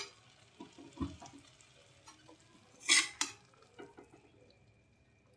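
A steel spoon scraping and knocking in a metal kadai as cooked greens are scooped out, in scattered soft strokes with a low thump about a second in and a loud double clatter about three seconds in.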